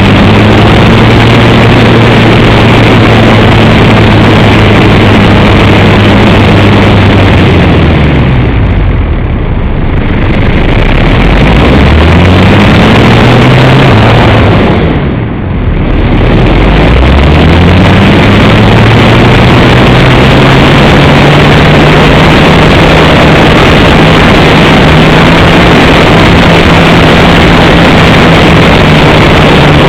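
Electric motor and propeller of an EasyGlider Pro RC glider running loud over a heavy rush of wind on the onboard camera. The motor's pitch falls away about eight seconds in, climbs back, drops again around fifteen seconds, then rises and holds steady: the throttle is eased off and opened up again.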